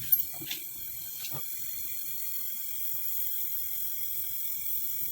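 Steady hiss, typical of a gas brazing torch burning while copper AC refrigerant pipe is brazed, with one sharp click shortly after the start.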